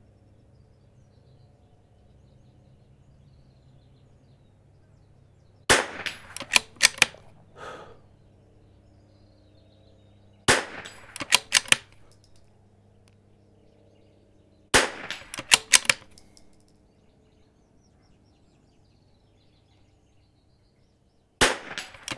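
Four .22LR rifle shots from a Vudoo bolt-action rimfire rifle, spaced several seconds apart. Each shot is a sharp crack followed by a quick run of metallic clicks as the bolt is worked to chamber the next round.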